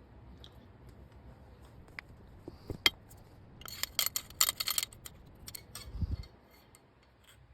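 Sharp metallic clicks and scraping as a tool works the stuck brass head of a fired 12-gauge shell out of a shotgun chamber. A quick run of clicks comes in the middle, and a dull low thump follows near the end.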